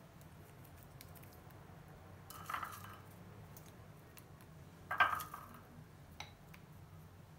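Faint handling sounds of chopped walnut pieces being picked from a small glass bowl and dropped onto custard, with a soft sound about two and a half seconds in and a sharper clink against glass about five seconds in, over a low steady hum.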